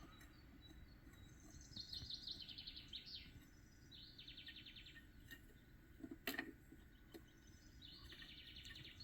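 Faint bird song in the background: three short high trilled phrases, with one brief knock about six seconds in.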